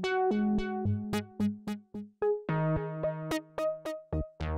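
Outro music: short, quickly fading keyboard-like notes in a quick rhythm over held low notes, changing chord about halfway through.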